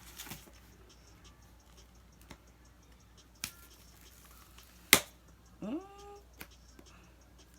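Scattered clicks and taps of a box being handled and opened, the sharpest click about five seconds in, followed by a short rising squeak.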